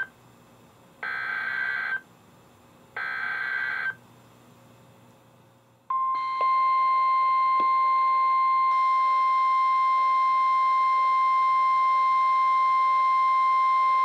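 Weather radios sounding two end-of-message data bursts, harsh buzzy chirps a second apart, that close the previous alert. A few seconds later the steady 1050 Hz NOAA Weather Radio warning alarm tone starts and holds, heralding the next warning.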